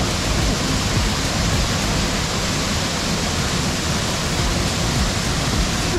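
Grotto Falls, a waterfall pouring onto rocks and into a pool, heard up close as a loud, steady rush of falling water.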